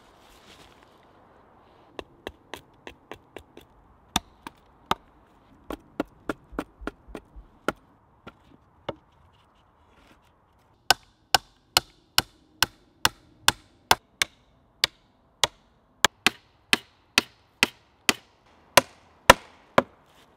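Hammer driving nails into wood: an uneven run of sharp strikes, a pause of about two seconds, then a steady run of about two blows a second.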